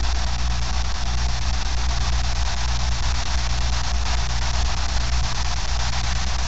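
Steady low electrical hum under an even hiss, unchanging throughout.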